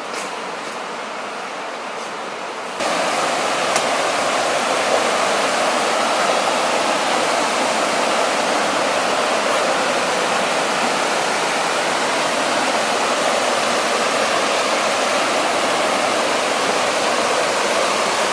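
Linville River rushing over rapids close by, a steady, loud wash of water. The level jumps up suddenly about three seconds in and then holds steady.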